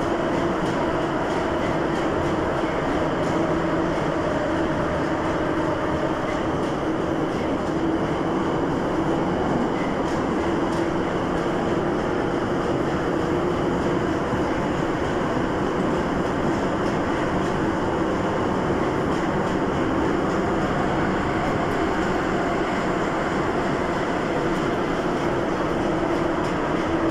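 81-717.5M metro train running at speed through a tunnel: a loud, steady rumble of wheels on rail with a constant hum, heard from on board.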